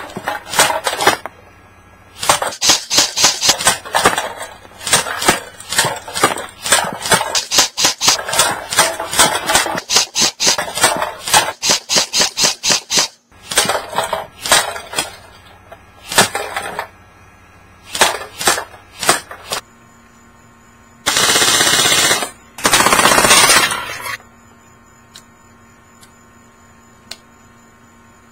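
Echo1 Troy MF-C electric airsoft rifle firing: a long run of quick single shots, then a few spaced shots, then two full-auto bursts of about a second each near the end.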